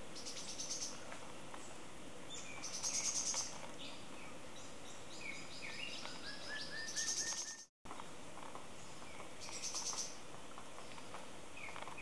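Forest songbirds calling: short, fast, high-pitched rattling trills repeated every few seconds, with scattered lower chirps between them. The sound drops out completely for a moment about two-thirds of the way through.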